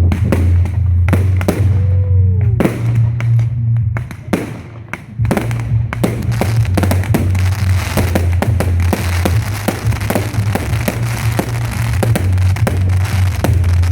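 Fireworks going off over music with a heavy bass line: a string of sharp bangs and shots. From about six seconds in, dense crackling fills the gaps between the bangs.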